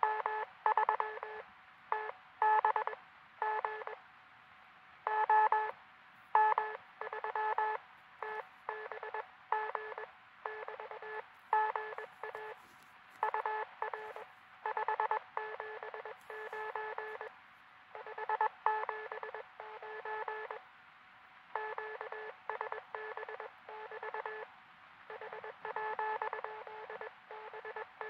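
Morse code (CW) from a truSDX QRP transceiver: a steady stream of keyed dots and dashes, with several tones sounding together.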